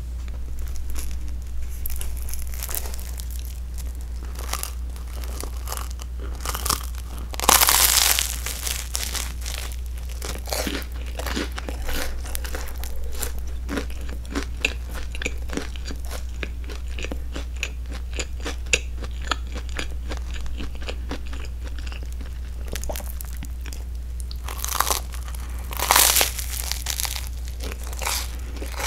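Crisp toasted crust of a grilled broccoli-cheese sandwich crunching and crackling close to the microphone: a steady run of small crackles, with a few louder crunches about eight seconds in and again near the end.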